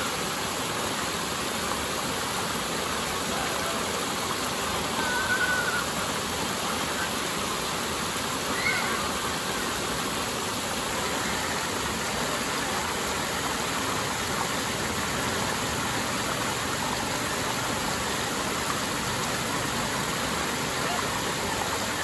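Steady rush of stream water pouring over small rock cascades. Two short, faint high sounds cut through it about five and nine seconds in.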